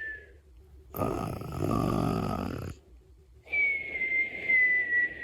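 A person snoring: a whistling breath tails off at the start, then comes a rough snore lasting about a second and a half, then another high whistling breath that falls slightly in pitch.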